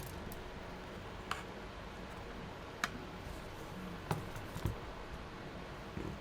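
Five or six short, sharp clicks and taps, spaced about a second apart, as small repair tools work on an opened iPad, over a steady low room hum.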